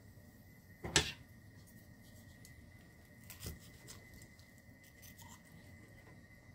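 A kitchen knife slicing through pan-fried chicken thigh with crisp skin on a plastic cutting board, the meat held down with metal tongs: faint scattered crackling and scraping ticks, with one sharp knock about a second in and a smaller one a couple of seconds later.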